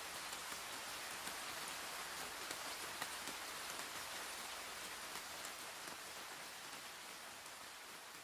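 Steady rain falling, an even hiss with scattered individual drops ticking, slowly fading from about halfway through.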